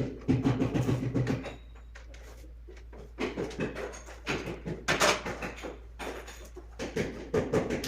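Scattered clicks and knocks of hand tools and pipe fittings being handled while the refrigerant pipes of a split air conditioner's indoor unit are disconnected.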